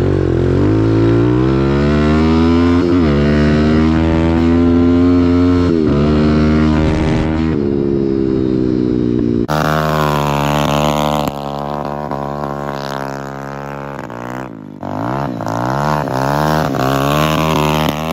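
Small single-cylinder four-stroke pit bike engine revving hard under acceleration. It climbs through the gears, with three sharp drops in pitch at the shifts. Partway through, a different, quieter engine sound takes over, revving up and down irregularly.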